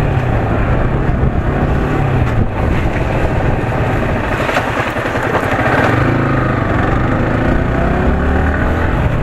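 Yamaha R15S's single-cylinder engine running under way, heard from on the moving bike over a steady rush of wind and road noise. The engine note rises and falls with the throttle and climbs for a couple of seconds about two-thirds of the way through.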